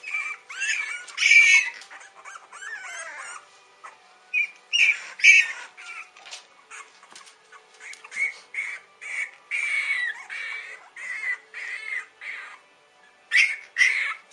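French bulldog puppies squealing and yelping in short, high-pitched squeaks while they wrestle. The cries come in clusters, with a quick regular string of them in the second half.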